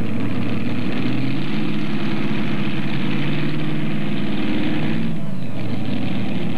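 Modified pulling tractor's engine idling at the starting line before the pull, a steady note that rises slightly about a second and a half in and eases back about five seconds in.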